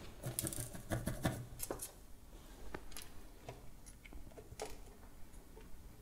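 Faint, scattered small clicks and taps of hands handling tiny parts: a DIY micro USB plug, solder wire and a soldering iron being picked up and positioned for tinning. The clicks come thickest in the first couple of seconds, then only every second or so.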